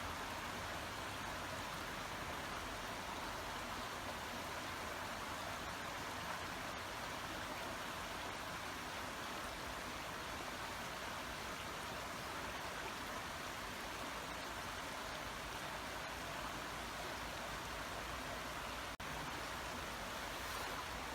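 Babbling brook: water running in a steady, even rush. The sound cuts out for an instant about nineteen seconds in.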